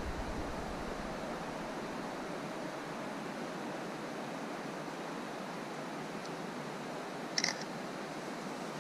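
Steady rushing of a creek's running water, even and unbroken. About seven seconds in there is one brief, high chirp.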